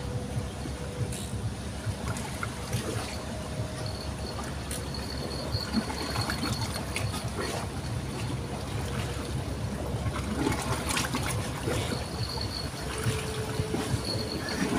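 River water trickling and flowing steadily, with small scattered clicks and splashes.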